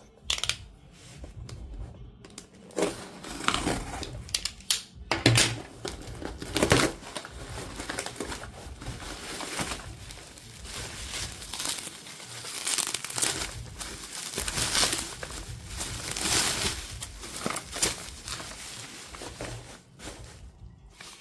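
Product packaging crinkling and rustling as it is handled and opened, with a few louder crackles in the first seven seconds and steadier crinkling after.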